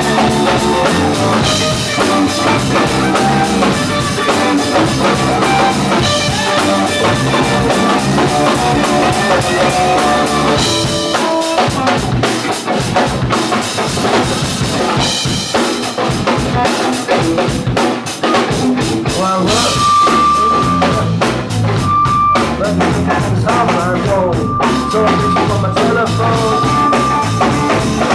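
Live rock band playing: drum kit and guitars. A high held note comes in and out over the last third.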